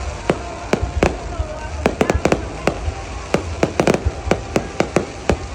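Fireworks display: a quick, uneven string of sharp bangs from bursting shells, about three or four a second, over a steady low background noise.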